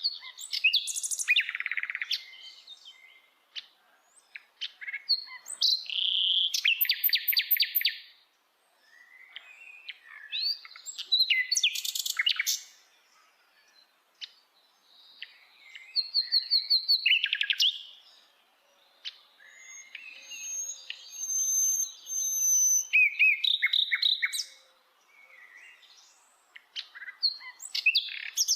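Common nightingale singing: about six varied phrases of two to five seconds, built of fast runs of repeated notes, trills and a few thin high whistles, with short pauses between them.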